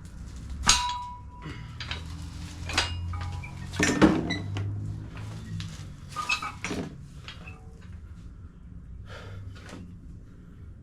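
About five sharp knocks and clanks, spread over the first seven seconds and loudest about four seconds in; the first rings briefly at one pitch. A low steady hum runs underneath.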